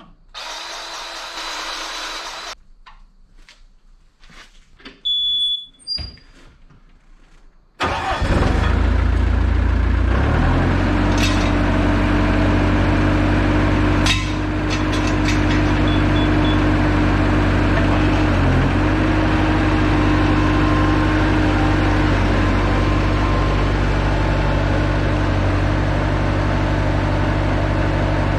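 Bobcat T200 compact track loader's mechanical diesel engine cranking and catching about eight seconds in, then running steadily; its pitch dips briefly once about ten seconds later. Before the start come a few light knocks and two short high beeps.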